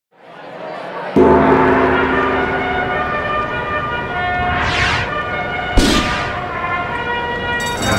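Produced intro sound effects: a ringing, bell-like chord swells in, and a deep boom hits about a second in. Then two whooshes sweep past, the second landing on a sharp hit near six seconds.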